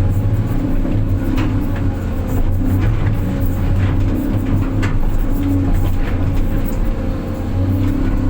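Diesel engine of heavy earthmoving machinery running steadily, with scattered short clanks and knocks.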